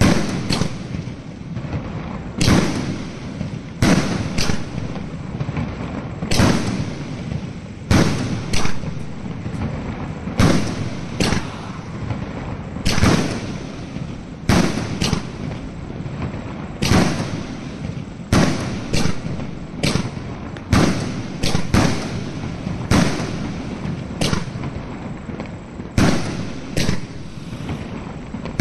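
A fireworks cake firing a long volley of aerial shots: loud bangs every second or two, irregular and some in close pairs, over a steady hiss and patter of smaller bursts between them.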